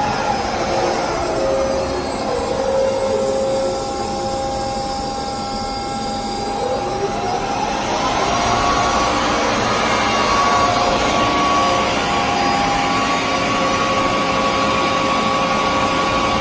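Ocean dual-mitering bandsaw running with a steady mechanical hum and whine. The whine drops in pitch over the first few seconds, climbs back up about six to eight seconds in, then holds steady.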